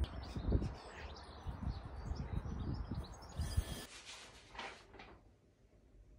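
Small birds chirping over garden background noise, with a few low thumps. About four seconds in it drops to quiet indoor room tone.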